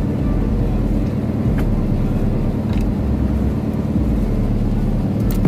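Fishing boat's engine running steadily at a constant pitch, with a couple of faint clicks.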